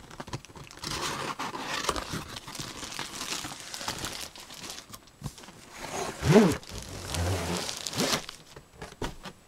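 Cardboard box and clear plastic wrapping rustling and crinkling as a tripod in its carry bag is slid out of the box. About six seconds in a brief squeak-like scrape is the loudest sound.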